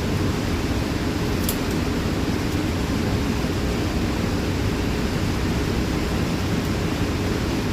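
Steady, low rumbling noise of wind buffeting the microphone, with no gunshots.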